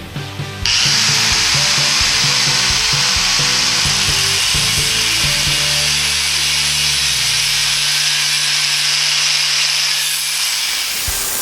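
A power tool starts abruptly about half a second in and runs steadily with a loud, hissing grind, shifting in tone near the end, over background music.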